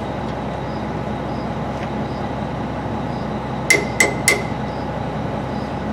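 Three quick hammer blows on metal, ringing, about a quarter second apart past the middle, struck while brakes are being adjusted, over a steady background drone.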